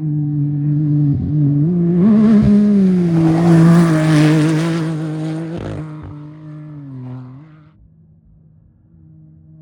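An off-road race vehicle's engine passing at speed. Its note climbs as it approaches and is loudest in the middle, with a rushing hiss. It then drops in pitch and fades away.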